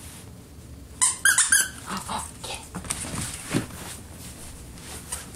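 Small long-haired dog giving a quick run of four high yaps about a second in, then softer rustling and crackling as it plays in torn wrapping paper.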